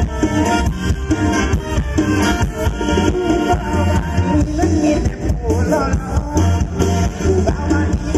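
Loud band music with a steady pulsing bass beat, from an Isan mor lam troupe's stage show. From about halfway a sung or lead melody bends up and down in pitch over it.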